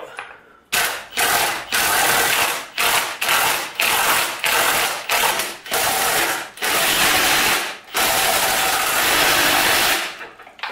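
Cordless impact driver running bolts in a string of short runs that start and stop sharply, the last and longest about two seconds.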